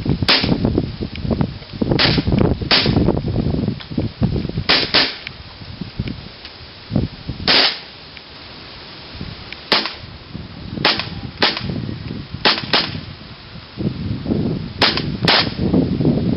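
KWA MP9 gas-blowback airsoft submachine gun firing single shots, about thirteen sharp cracks at irregular spacing, several in quick pairs.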